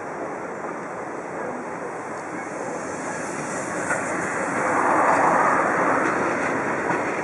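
Steam locomotive rolling slowly past close by, a steady hiss and rush of steam that swells loudest about five seconds in as it comes nearest.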